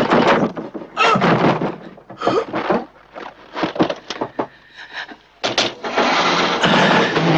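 A run of separate knocks, bangs and clatters, then, about five and a half seconds in, a sudden loud burst followed by a motor vehicle's engine running loudly and steadily.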